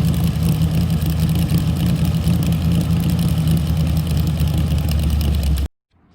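Car engine running steadily and loud, with a deep, constant drone, cutting off suddenly near the end.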